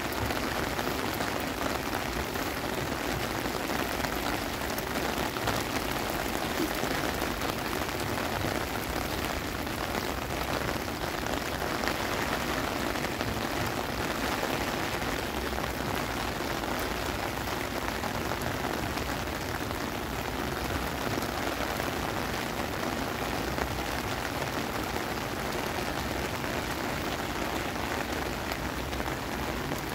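Heavy rain pouring steadily onto wet pavement and grass, an even hiss of splashing drops.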